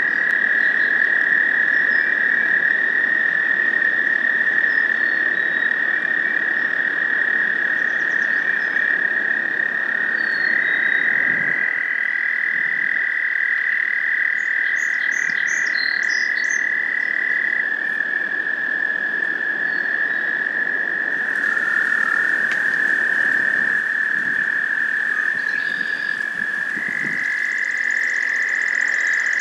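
Chorus of American toads trilling: long, steady, high trills from several toads at slightly different pitches, overlapping, with individual trills starting and stopping throughout.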